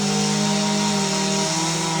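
Chainsaw engine running at high revs, likely cutting into the tree. Its pitch dips slightly about one and a half seconds in.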